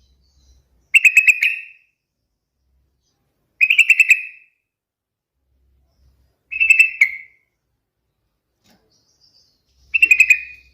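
Yellow-vented bulbul (trucukan) singing: four short phrases of rapid, whistled notes, one about every three seconds.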